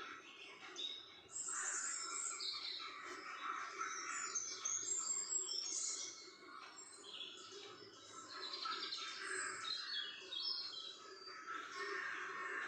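Small birds chirping and twittering, many short calls overlapping.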